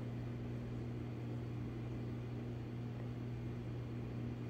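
Steady low electrical hum with a faint even hiss from running equipment, unchanging throughout.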